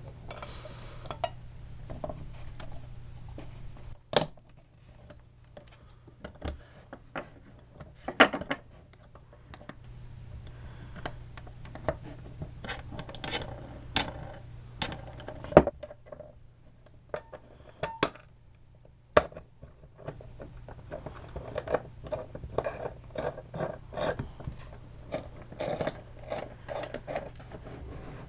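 Small metal and plastic parts of an airsoft version 2 gearbox being handled and set into the gearbox shell during reassembly: irregular clicks, taps and clinks, with a few sharper knocks.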